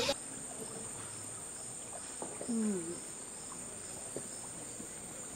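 Rainforest insects droning steadily at a high pitch, with faint regular pulsing. A short low call falls in pitch about two and a half seconds in.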